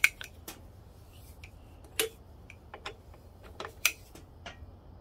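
Scattered sharp metallic clicks and knocks of a socket and beam-type torque wrench being handled and fitted onto a motorcycle engine's flywheel nut, the loudest right at the start and just before four seconds in.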